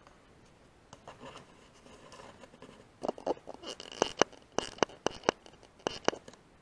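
A run of sharp clicks and scratching sounds close to the microphone, sparse at first and then coming in quick clusters for the last few seconds.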